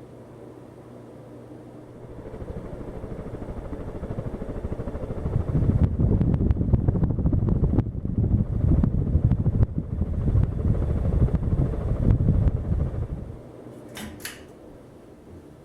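Kenroy TropiCool ceiling fan running, its moving air buffeting the microphone in a loud, uneven low rumble that builds over the first few seconds and cuts out suddenly about three seconds before the end. A brief higher-pitched sound follows shortly after.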